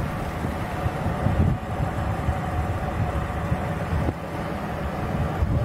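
Turbofan engines of a regional jet with two rear-mounted engines on final approach, passing low overhead with a steady, rumbling jet noise and a faint whine.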